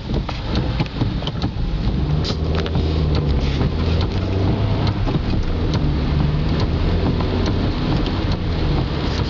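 Inside a car moving in heavy rain: engine and wet-road tyre noise hum low and steady, strengthening a couple of seconds in as the car gets under way, while many small ticks of raindrops hit the windshield and roof.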